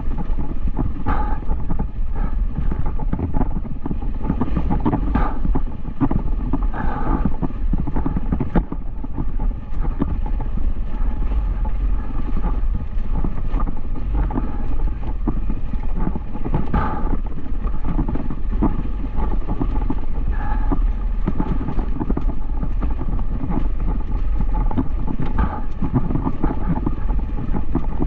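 Dual-sport motorcycle being ridden, its engine running under heavy wind buffeting on the microphone, with frequent small knocks and rattles.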